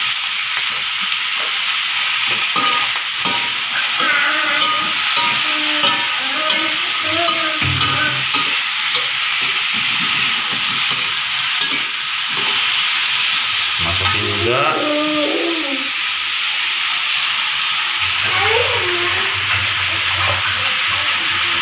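Squash strips and petai beans sizzling in hot oil in a wok, with a spatula stirring and scraping against the pan.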